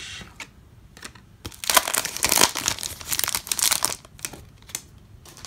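Trading card pack wrapper crinkling and rustling loudly for about two and a half seconds as a stack of baseball cards is handled, starting about a second and a half in. A few short card clicks come before and after it.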